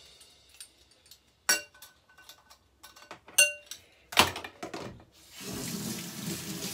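A glass mixing bowl is knocked a few times, each clink ringing briefly. Near the end, a plastic bag rustles.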